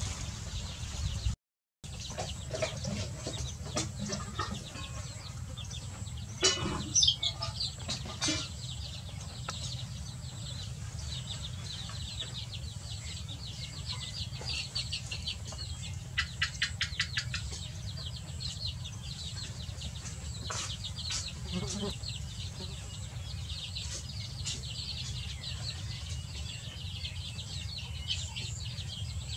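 A brood of young chicks peeping constantly around a mother hen, with a couple of louder hen calls about six and eight seconds in.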